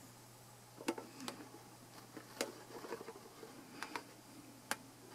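Six sharp clicks at irregular intervals, from handling a computer's mouse and keys, with soft rustling between them over a faint low hum.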